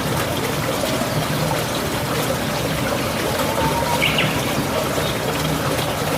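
Steady running, trickling water with an occasional bird chirp, one short chirp about four seconds in.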